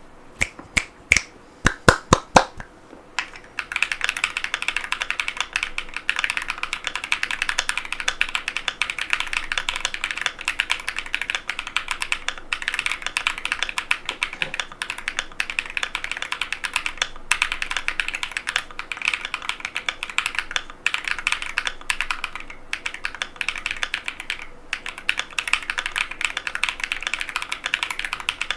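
Mechanical keyboard with Epomaker Lemon switches and PBT keycaps (stock Epomaker Tide75): a handful of separate loud key strikes in the first few seconds, then fast continuous typing with a few brief pauses.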